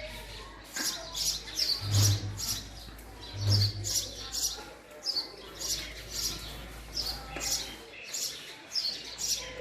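Male house sparrow chirping: a steady run of short, high chirps, about two or three a second.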